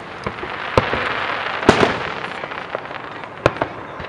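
Aerial fireworks shells bursting overhead: three loud bangs, about a second in, near the middle and late, with smaller pops between them.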